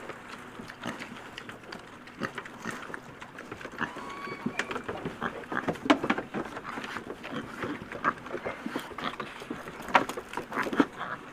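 Several pigs eating together from a trough: a steady, irregular run of chewing, smacking and crunching, with a few sharper crunches.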